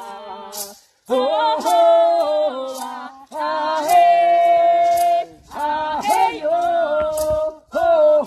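Kariri-Xocó prayer chant (rezo) sung without instruments, in long held notes with short breaks between phrases.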